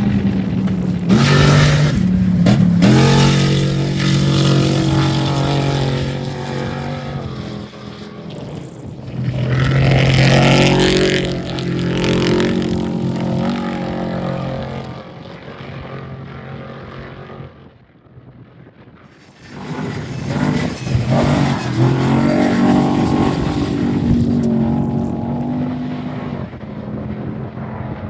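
Off-road race vehicles passing one after another at speed, their engines revving and then falling away in pitch. Three loud passes, with a brief lull before the last.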